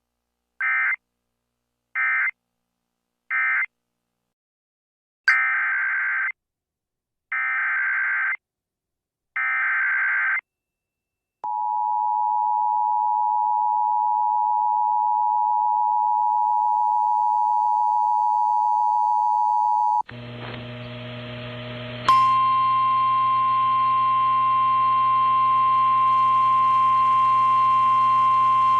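Emergency Alert System tones. Three short warbling data bursts (the end-of-message code) come first, then three longer data bursts (the SAME header), then the two-tone attention signal held for about eight seconds. About twenty seconds in, the sound changes to a humming radio feed, and two seconds later the steady single-pitch 1050 Hz NOAA Weather Radio warning alarm starts.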